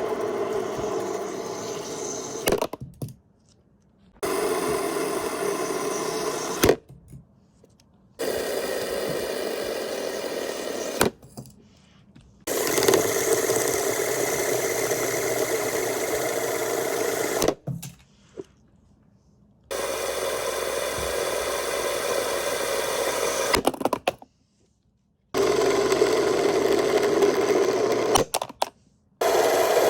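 Spinning fidget spinners whirring steadily in runs of a few seconds, each cut off abruptly, with short clicks and knocks as they stop.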